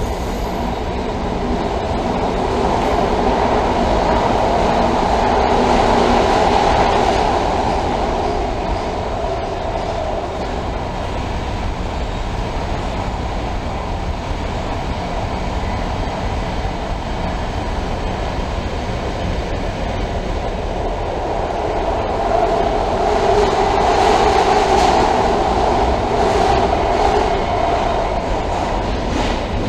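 LA Metro Purple Line subway train running through the tunnel, heard from inside the car: a steady rumble of wheels on rail with a droning hum that swells louder twice.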